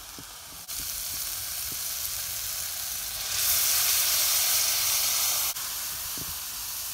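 Sweet peppers and onion sizzling in butter in a hot iron pot over a wood fire. About three seconds in, the sizzle grows louder and hissier as coconut milk is poured into the pot, then settles back after about two seconds.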